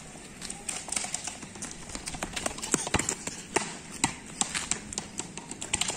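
Running footsteps on concrete paving: irregular sharp slaps and taps, a few a second, with one louder knock about three seconds in.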